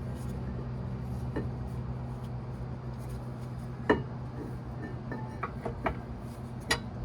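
Sharp metallic clicks and clinks of brake pads and their clips being fitted into a disc brake caliper, the loudest about four seconds in and a quick run of several near the end, over a steady low hum.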